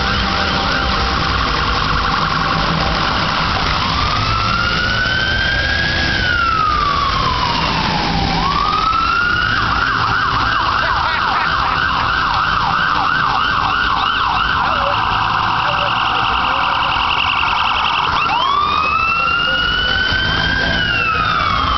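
Emergency vehicle siren: a slow rising-and-falling wail, then a fast yelp for several seconds, then the wail again, over a steady hiss of splash-fountain water jets.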